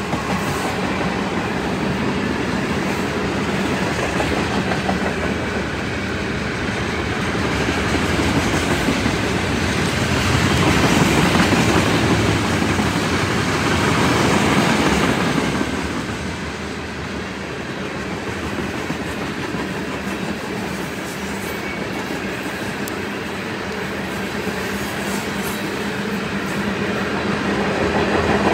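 Freight train cars rolling past close by: a steady rumble and rattle of steel wheels on the rails, growing louder in the middle and easing off after about sixteen seconds.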